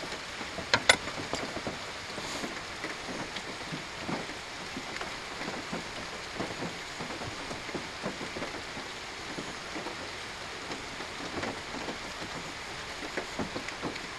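Steady rain falling, with scattered drips. About a second in, two sharp metallic clinks with a brief ring as the stainless steel stove stand is handled.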